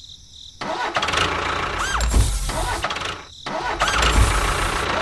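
A small motor running in two stretches with a deep rumble and short squealing glides. It starts about half a second in and breaks off briefly a little after three seconds.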